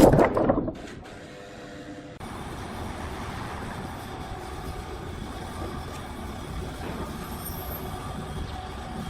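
Sawmill machinery running with a steady, noisy mechanical hum. It starts loud, drops away within the first second, then comes back steady from about two seconds in.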